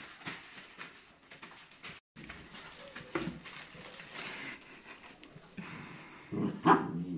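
Rottweiler puppies scuffling and tugging at a rubber ring toy, rustling wood shavings and plastic sheeting, with short pitched puppy vocalisations, once about three seconds in and louder near the end.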